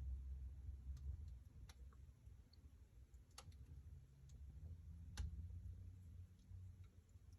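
Wood fire crackling in a fireplace: a few sharp pops a second or two apart, over a low rumble from the flames.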